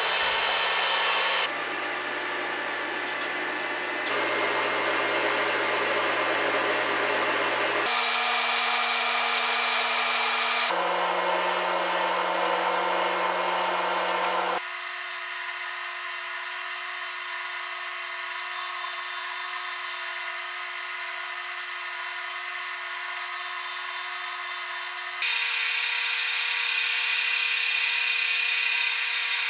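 Metal lathe running as a steel rifle barrel is turned and its tenon threaded, in a string of edited shots: each holds a steady motor hum at its own pitch over a hiss of cutting, and the sound changes abruptly at each cut. It is quieter from about 15 to 25 seconds.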